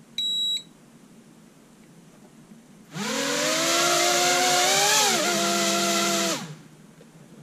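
Holy Stone HS150 Bolt Bee mini quadcopter's motors spinning up together with a layered whine that rises in pitch, dips briefly, holds steady, then stops about three and a half seconds later: a bench test with the newly replaced motor running alongside the others. A short high electronic beep sounds about a quarter-second in.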